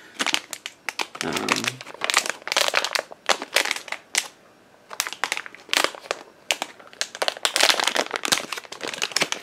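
Metallised anti-static bag being handled and pulled open, crinkling and crackling in irregular bursts.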